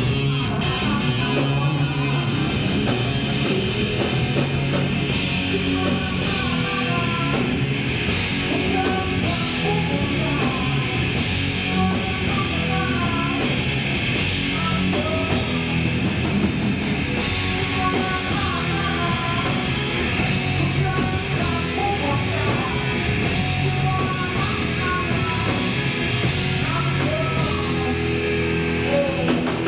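Rock band playing live: distorted electric guitar over drums, in a heavy, punk-like style.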